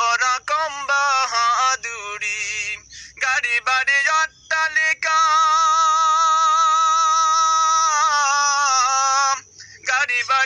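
A man singing solo without accompaniment, in short phrases with brief pauses, then holding one long note from about five seconds in until near the end.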